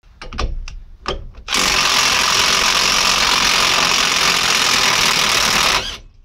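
A few short knocks, then a cordless impact wrench hammering steadily for about four seconds on a Ford Transit's rear wheel hub nut, undoing it. The wrench cuts off suddenly near the end.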